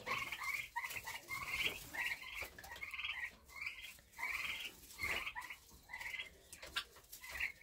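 Young meat turkeys peeping: a steady series of short calls, each rising and falling in pitch, about two a second.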